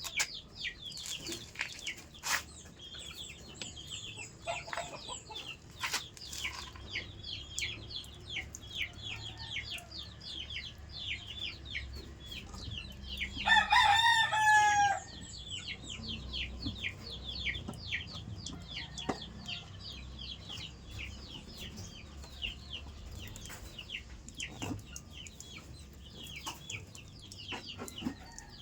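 Chickens in a yard, with many short high-pitched peeps and clucks throughout, and a rooster crowing once, loudly, about halfway through.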